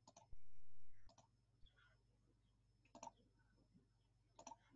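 Computer mouse button clicking: about four short double clicks, spread out and faint.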